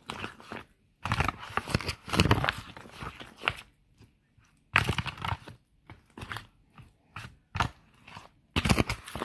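Spoon stirring thick, wet corn casserole batter in a disposable aluminium foil pan. The spoon scrapes and the foil crinkles in irregular strokes with short pauses between them.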